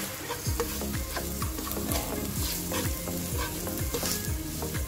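Chopped onion and garlic sizzling in hot oil in a nonstick pan, stirred with a plastic spatula, frying until the onion turns translucent. Underneath runs a low regular thump about twice a second.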